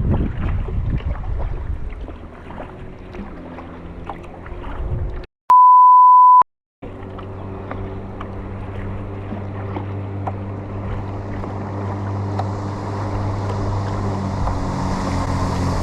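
Kayak paddle strokes and water splashing, cut about five seconds in by a loud one-second censor bleep, a steady pure beep tone. After it a motorboat engine's steady drone grows louder as it approaches, with rushing water hiss building near the end.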